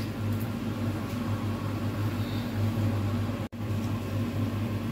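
Steady low machine hum that does not change; it cuts out completely for an instant about three and a half seconds in.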